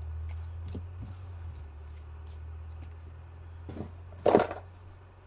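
Trading cards being handled on a table, making faint clicks and rustles over a steady low hum, with one short, louder rustling noise about four seconds in.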